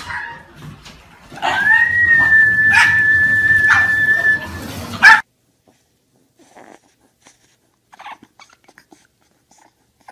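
A dog whining in one long, steady, high note for about three seconds, with a few knocks over it. After that come only faint, short whimpers from a bulldog puppy.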